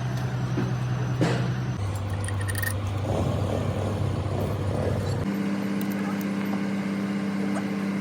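Steady engine-like machine hum. Its pitch drops abruptly about two seconds in and rises to a higher pitch about five seconds in, with a light click about a second in.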